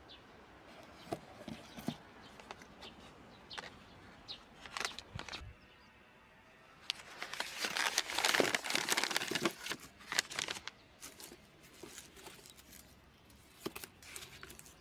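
Rustling and crinkling with scattered light clicks, densest from about seven to ten seconds in.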